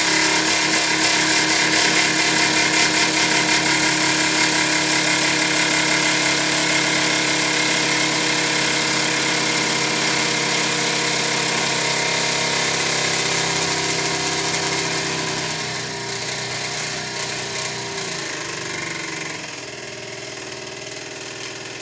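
Microcosm M1 double-acting marine model steam engine running fast with its throttle wide open on about 10 pounds of steam pressure: a steady mechanical running sound with a hiss of steam. It gets quieter in steps during the last several seconds.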